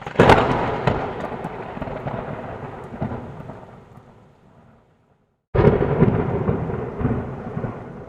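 Two thunderclaps during a rainstorm: one right at the start and another about five and a half seconds in. Each starts suddenly and rumbles away over several seconds.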